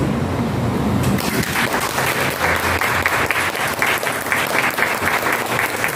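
A small group of people applauding, the hand claps starting about a second in and going on steadily.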